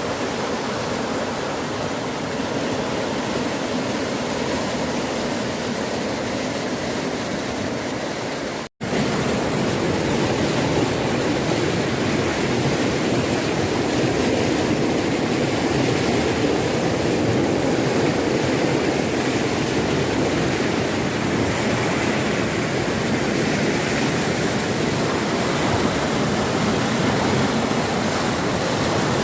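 Floodwater rushing in a steady, loud torrent. It breaks off for an instant about nine seconds in, then carries on slightly louder.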